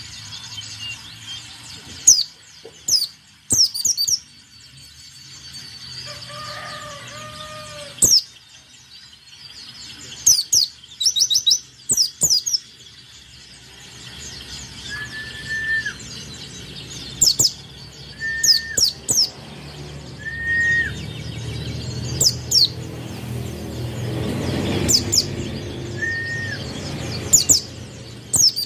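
White-eye (pleci) singing in short bursts of sharp, very high chirps that fall quickly in pitch, grouped in quick clusters of two to five notes: the lively song that bird keepers call gacor.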